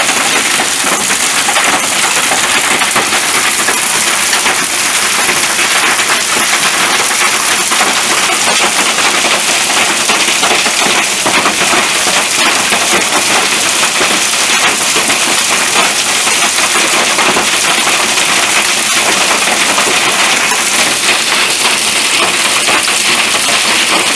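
Heavy rain falling steadily, a dense, even hiss of countless drops that keeps up without a break.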